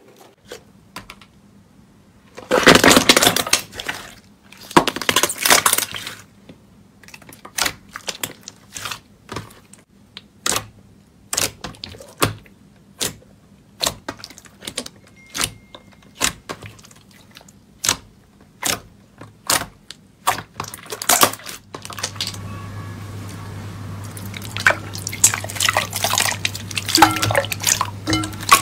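Glossy slime being pressed and squished by hand. There are two long wet squelches a few seconds in, then a steady run of short sharp pops about every three-quarters of a second as trapped air bursts. In the last few seconds a denser wet crackling takes over, with a low hum underneath.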